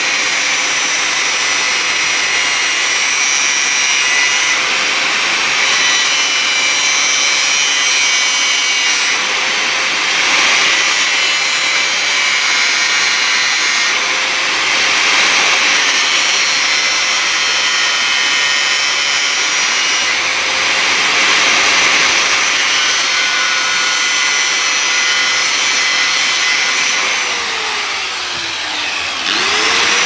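Electric grinder with a thin abrasive disc running at a steady whine while a steel washing-machine spin-dryer spring's cut end is pressed against it to grind it flat. The grinding hiss swells and eases as the spring is pushed on and eased off. Near the end the motor's pitch sags and then climbs back up.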